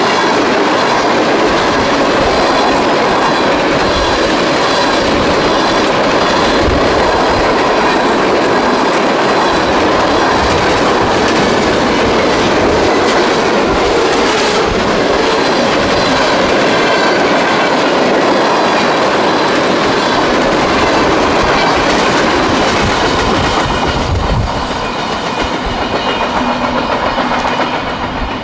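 Freight train cars rolling past close by, a loud, steady rumble of steel wheels on rail. The sound drops off a few seconds before the end as the train recedes.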